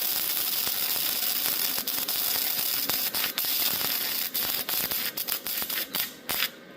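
Welding arc crackling steadily as a weld bead is run, with brief stutters and dropouts, then cutting off suddenly about six and a half seconds in as the arc is broken.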